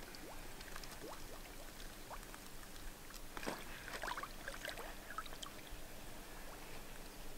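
Shallow water sloshing and trickling around a floating carp sling as a large common carp is released, with a short flurry of splashes about halfway through as the fish swims off.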